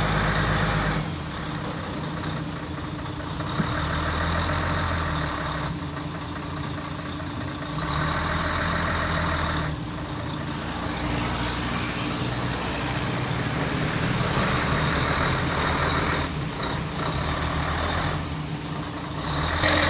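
Diesel engine of a loaded tractor-trailer truck running at low speed while it is manoeuvred in reverse, its revs rising and easing several times.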